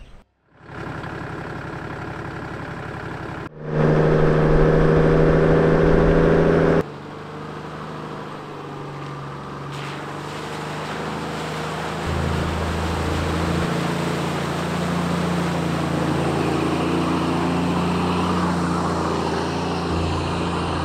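A four-wheel drive's engine running steadily as it drives through a shallow tidal creek crossing, with water splashing off the wheels.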